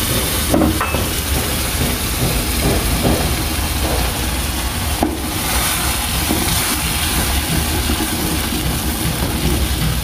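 Hot fat sizzling steadily in an aluminium saucepan as blended potato is stirred into the fried bacon and sausage with a wooden spoon, over a low rumble, with a couple of light knocks about half a second and five seconds in.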